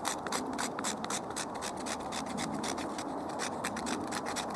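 Knife blade scraped rapidly back and forth over birch bark, an even run of rasping strokes several times a second, shaving off fine bark tinder.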